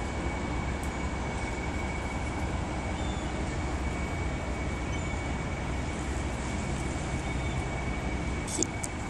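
Steady low rumbling background noise with a thin, steady high tone running through it, and a few short clicks near the end.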